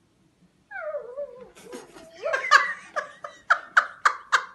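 A person laughing: a falling vocal exclamation, then a run of quick repeated laughs, about three or four a second, from about two seconds in.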